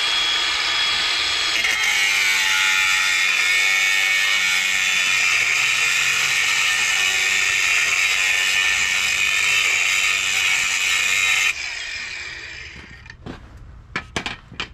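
Angle grinder with a cut-off wheel scoring a reference mark into the steel axle tube of a Ford 8.8 rear axle. Its high whine drops in pitch about two seconds in as the wheel bites the metal, then runs steadily under load. Near the end the switch is let go and it spins down, followed by a few light knocks.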